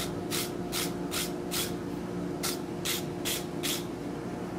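Steel wire brush scrubbing hot forge-welding stock on the anvil in quick, even strokes, about two to three a second, with a short break in the middle; the strokes stop near the end. A steady low hum runs underneath.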